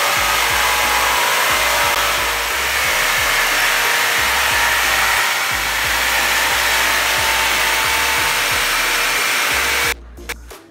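Handheld electric power tool running steadily as a worker cuts at a wooden kitchen-cabinet panel; the motor noise cuts off sharply near the end.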